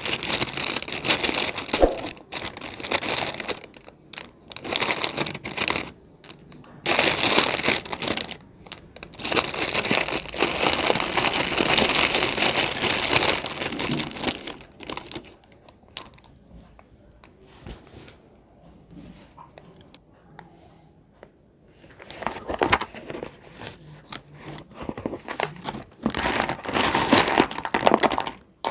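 Foil packet crinkling and rustling as it is handled and chunks of edible clay stone are shaken out of it. It comes in several bursts, with a quieter stretch in the middle.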